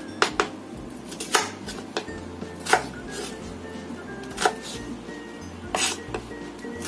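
Chef's knife chopping shallots into large chunks on a wooden cutting board: sharp knocks of the blade striking the board at irregular intervals, about eight in all, over background music.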